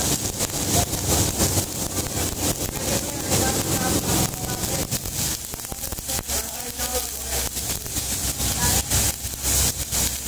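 Stick (shielded metal arc) welding on galvanized iron pipe: the electrode's arc crackling and sizzling steadily, with a low hum joining in about halfway.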